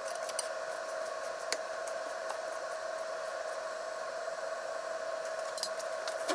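Kitchen knife chopping shiso leaves on a wooden cutting board: scattered light taps. A steady mechanical hum runs underneath and is louder than the taps.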